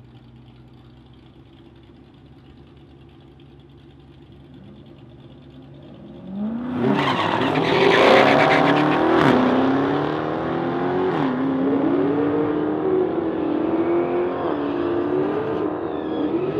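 Two supercharged V8 muscle cars, a Dodge Charger SRT Hellcat and a Shelby GT500 Mustang, idle at the drag-strip start line, then launch together about six seconds in. The engines turn loud and rise in pitch, dropping back at each upshift several times as the cars accelerate down the track.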